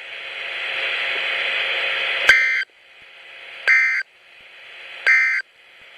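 NOAA Weather Radio broadcast: three short digital data bursts of the SAME end-of-message code, about 1.4 seconds apart, marking the end of the weekly test alert. Between them a hiss of radio static swells up and cuts out after each burst.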